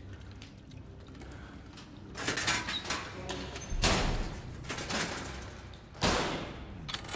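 Horror-film sound design: a low rumbling drone with sudden loud hits, a quick cluster about two seconds in, then single hits about four and six seconds in, each dying away.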